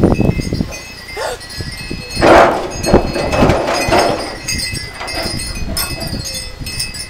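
Chimes ringing with steady high tones, broken by several short, loud, rough sounds, the loudest about two seconds in.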